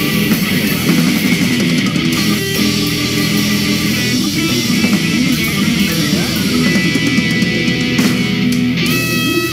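Rock music led by electric guitar, played loud and steady as a segment bumper; a chord is held near the end.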